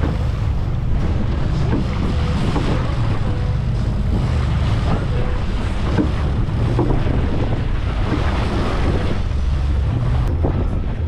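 Fishing boat running through rough sea: a steady low engine drone under heavy wind buffeting on the microphone and the rush of water against the hull.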